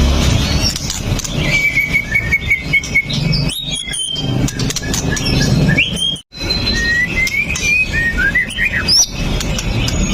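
White-rumped shama (murai batu) singing: a varied run of short whistled phrases, rising and falling slurred notes and a rattling trill. A brief dropout comes just past halfway, and a low rumble runs under the song.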